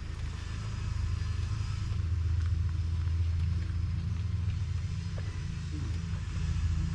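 A vehicle engine running, a steady low rumble that swells a little about two seconds in, with a faint even hiss above it.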